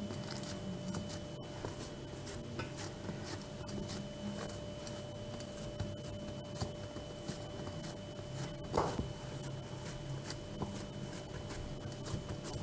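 Hands pressing and spreading soft, risen yeast dough across an oiled round baking tray: faint rubbing and patting, over a steady faint hum.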